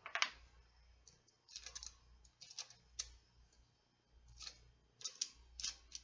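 Scattered light plastic clicks and taps from fingers handling and pressing parts into a Kato No. 6 model railroad turnout as it is put back together after an internal wire repair.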